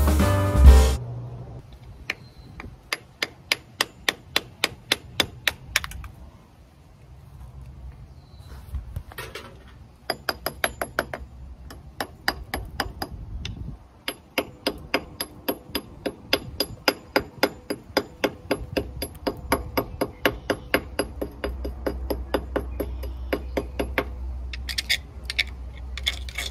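Hammer tapping on aluminum sheet-metal frame pieces in quick, even runs of about four blows a second. Each blow has a short metallic ring, and the runs stop briefly a few times.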